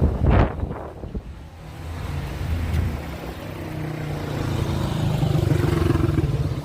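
Wind buffeting the microphone at the start, then a motor vehicle's engine running steadily and growing louder, dropping away just at the end.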